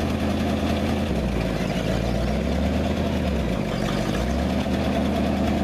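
Old dump truck's engine running steadily, its low note shifting and dipping about a second in and again near four seconds as the load on it changes.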